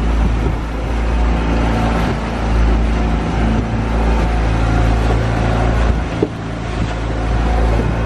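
Boat engine running steadily under way, a constant low drone, with rushing noise over it.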